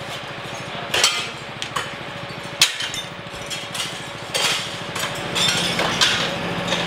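Sharp knocks and cracks, about five of them spread a second or so apart, over the steady hum of an engine running.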